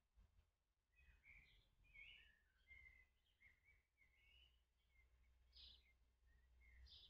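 Faint, high cheeping of a nestling bird calling for its parent: a run of short chirps starting about a second in, over a low steady hum.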